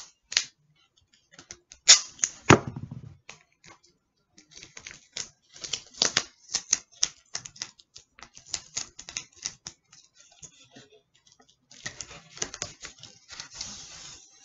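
Duct tape being pulled off the roll and worked onto cardboard: runs of quick crackling ticks in several spurts, with a louder rip about two seconds in.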